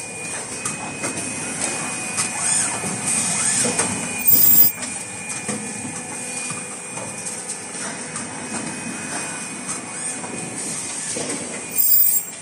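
Automatic N95 cup-mask production line running: a steady mechanical clatter of clicks and knocks under a constant high whine, with two brief louder bursts about seven seconds apart.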